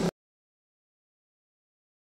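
Total silence: the audio cuts off abruptly just after the start and nothing follows.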